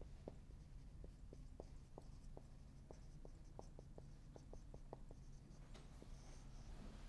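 Felt-tip marker writing on a whiteboard: faint, short quick strokes, about fifteen of them in the first five seconds, then the pen stops.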